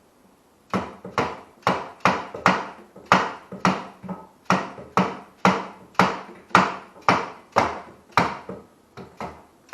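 Rubber mallet knocking a tight-fitting motorcycle swing arm into its frame mounting: a steady run of sharp blows, about two a second, starting just under a second in.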